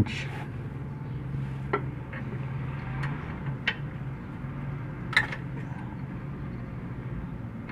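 Four light metallic clicks, the loudest about five seconds in, as a 10 mm open-end wrench is set on and turns the clutch slave cylinder's bleeder valve to open it for bleeding, over a steady low hum.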